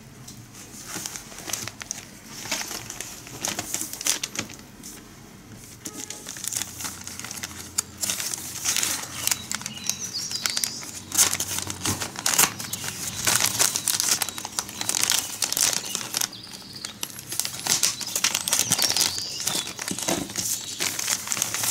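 Thin plastic packaging bag crinkling and rustling as it is handled and pulled open, a quick irregular crackle that grows busier and louder after about eight seconds.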